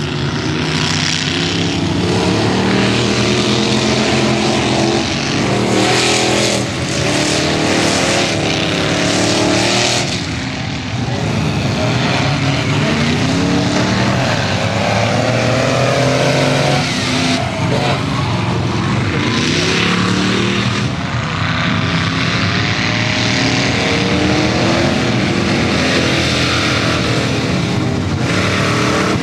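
Lifted 4x4 off-road trucks racing down a grass strip, their engines revving hard at full throttle. The engine pitch repeatedly climbs and then drops as the trucks accelerate and shift.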